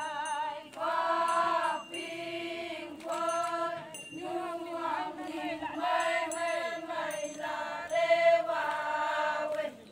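A group of women singing a Konyak Naga folk song in unison, in held phrases about a second long with short breaks between them.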